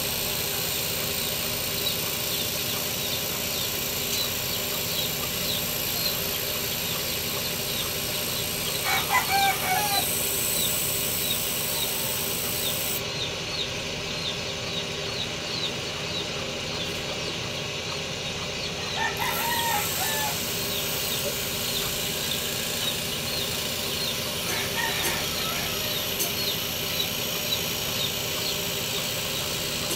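Roosters crowing three times, roughly ten seconds apart, over a constant high chirping and a steady hum.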